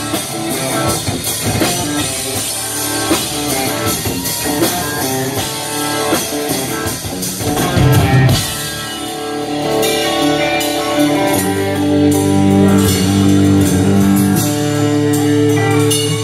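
Live country-rock band playing an instrumental passage on electric guitars, acoustic guitar, bass and drum kit. From about nine seconds in, the band holds long ringing chords with drum hits over them as the song winds up.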